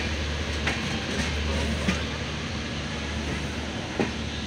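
A passenger train running slowly, heard from inside the coach: a steady low rumble, with a few sharp clacks from the wheels crossing rail joints.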